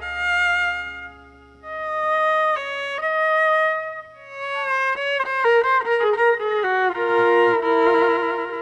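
Violin playing a waltz melody: held notes with vibrato, a short break about a second in, then a run of quick short notes in the middle, settling on a held note near the end.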